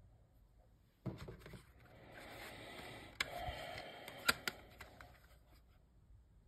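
Plastic CD jewel case being handled, opened and snapped shut: sharp plastic clicks about a second in and again around three and four seconds, with scraping and rustling of the case between.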